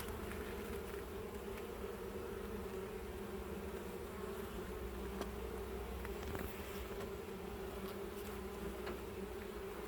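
Honeybees buzzing as a steady hum around an open hive, with a few faint clicks.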